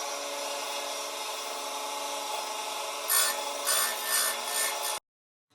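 Oregon 410-120 electric chain grinder running with a steady whine. From about three seconds in, the grinding wheel is brought down on the saw chain's cutters in four or five short rasping passes, and then the sound cuts off abruptly.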